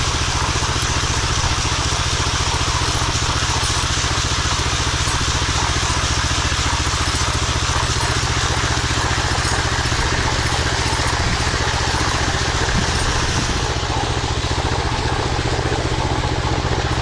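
Gas engine of a walk-behind power trowel running steadily under load as its blades work a curing concrete slab on a finishing pass.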